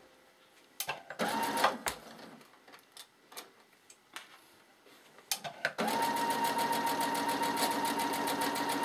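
Brother FS130QC computerized sewing machine stitching a seam: a short half-second burst of stitches about a second in, a few light clicks, then a steady run of stitching from about six seconds in, a constant motor whine with rapid needle taps.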